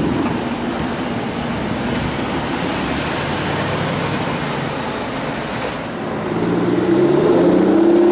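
Aston Martin DBS's 5.9-litre V12 running over street traffic noise. About six seconds in, its engine note rises and grows louder, then holds at the higher pitch.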